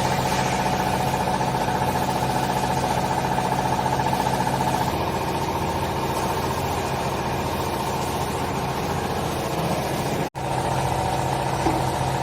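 Hydraulic baler's electric motor and pump running with a steady hum. It drops out for an instant about ten seconds in, then continues unchanged.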